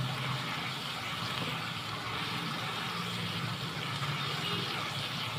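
Garlic-ginger paste sizzling steadily in hot oil in a kadai as it is sautéed, with a faint low hum underneath.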